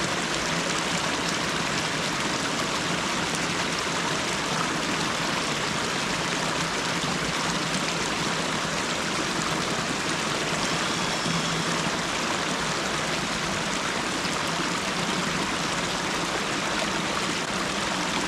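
Steady rush of creek water spilling over a small drop.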